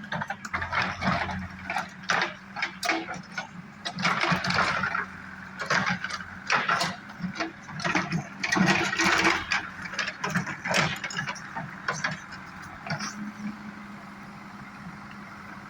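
JCB 3DX backhoe loader's diesel engine running steadily under working load, with repeated irregular rattles and knocks.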